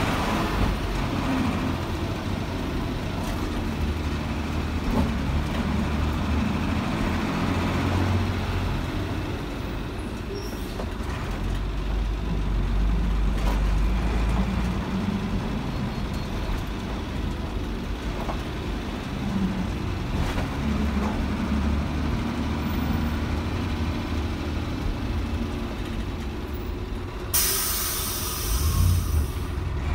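Mercedes-Benz 366 diesel engine of a DINA CATOSA Sansón bus running as the bus travels. A short hiss of released air, from the bus's air brakes, comes near the end.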